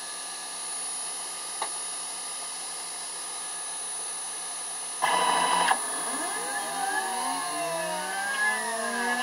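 Stepper motors of a homemade CNC laser cutter: a steady whirring hum, then about five seconds in a short louder buzz, followed by overlapping whines that rise and fall in pitch as the axes speed up and slow down tracing circles.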